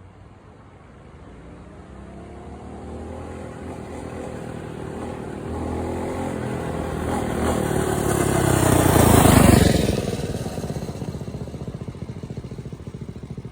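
Engine of a small vehicle with its governor removed and a new exhaust fitted, running as it comes closer and passes by. The engine sound builds steadily, is loudest about nine seconds in, then drops quickly in pitch and loudness as it goes past, leaving a lower running sound.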